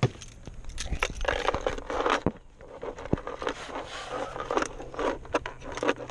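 Rummaging behind a car seat and pulling out a portable battery pack: irregular scraping, rustling and small knocks as it is dragged free and lifted.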